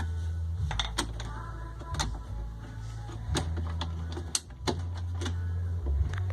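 Scattered sharp clicks and knocks, about seven, from tools and metal parts being handled while a washing machine's transmission and shifter are worked on, over a steady low hum and faint background music.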